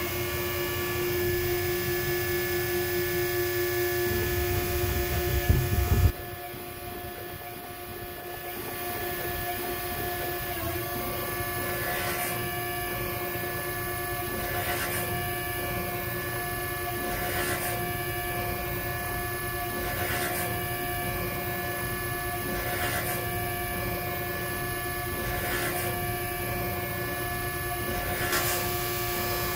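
Robotic gear-deburring machine running: a spindle-driven abrasive disc working along the teeth of a large helicopter ring gear, heard as a steady machine whine with several held tones. A heavy low rumble for the first six seconds stops abruptly, after which a brief swish recurs about every two and a half seconds as the gear turns past the disc.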